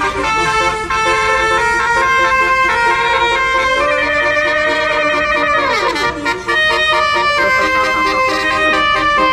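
A bus's multi-tone telolet air horn playing a quick stepped tune of overlapping notes. About six seconds in, one held chord slides steeply down in pitch before the tune carries on.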